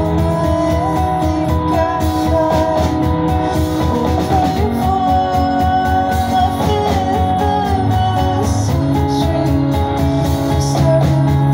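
Indie rock band playing live: electric guitars, bass and drums, with a woman's voice singing over them.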